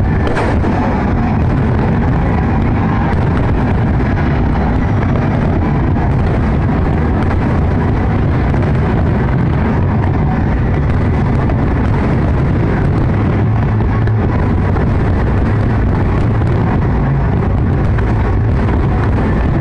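Aerial fireworks going off in a dense barrage, the bursts merging into a continuous loud rumble.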